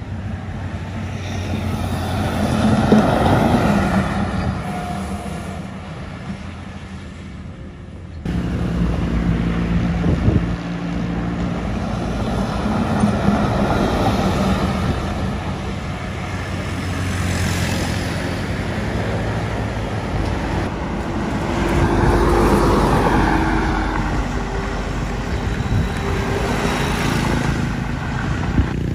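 Large diesel buses passing along a highway, engine and tyre noise swelling as each comes close and fading as it moves away. Abrupt jumps in the sound about eight seconds in and again about twenty-one seconds in, between passes. In the middle stretch a MAN R39 coach goes by close up.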